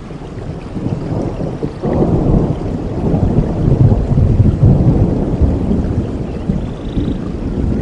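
Rolling thunder over steady rain: a deep rumble that swells about two seconds in and eases off toward the end.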